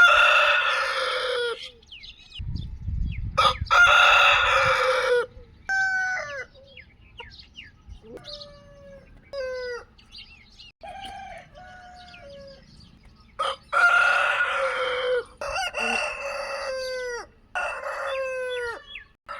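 Desi roosters crowing: about five long, loud crows, two close together near the start and three in quick succession near the end, with shorter, falling clucks and calls from chickens in between.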